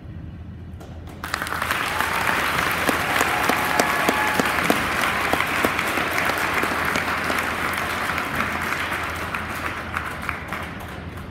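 Audience applauding. The clapping starts suddenly about a second in, holds steady and tapers off near the end.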